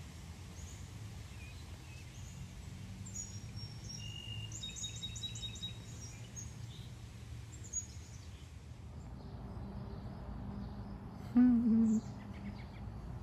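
Small birds chirping and whistling over a steady outdoor background. About eleven seconds in, a chicken gives one short, loud squawk lasting just over half a second.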